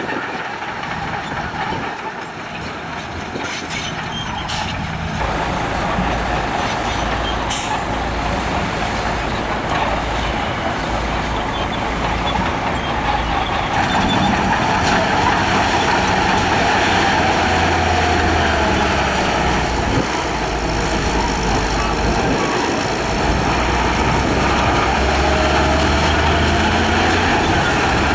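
Diesel engines of heavy road-construction machinery running under load. The engine note rises and falls, and the noise grows louder about five seconds in and again midway.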